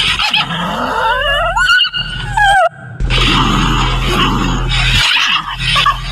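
Puppy growling and yelping: high gliding cries in the first half, then a rough growling stretch after a brief pause.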